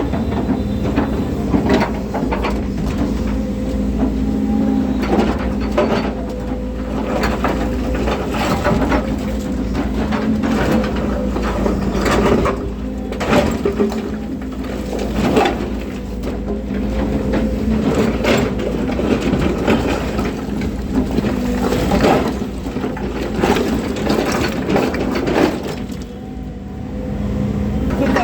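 Volvo excavator's diesel engine running steadily under work, with repeated cracks, knocks and scraping from the bucket digging into soil and stone.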